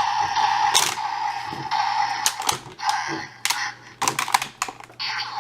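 Plastic clicks and snaps from a Kamen Rider Build DX Full Bottle Buster toy weapon being handled and switched into blaster mode. A hazy electronic sound from the toy's small built-in speaker plays underneath.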